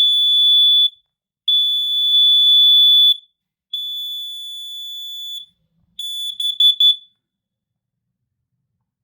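Kidde KNCOEG3 explosive gas and carbon monoxide alarm sounding its test: a high, steady electronic tone in long pulses of about a second and a half, with short gaps between. The last pulse breaks up into quick chirps and stops about 7 seconds in.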